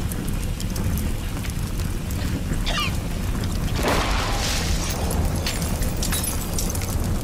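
Fire burning in a room with a steady low rumble, then an explosion about four seconds in.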